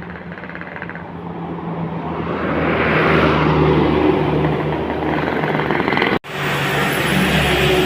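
Tour bus driving past close by: engine and tyre noise grows louder over the first three seconds and stays loud, broken by a sudden cut about six seconds in before the vehicle noise carries on.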